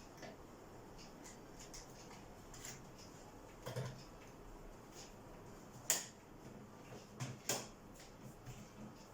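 Scattered light clicks and knocks of parts and tools being handled during work on a refrigerator door. The sharpest click comes about six seconds in, followed by two more about a second and a half later.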